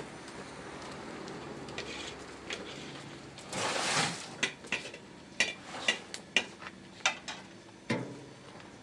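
Metal cookware being handled: a brief scraping rustle, then about eight sharp clinks spread over a few seconds.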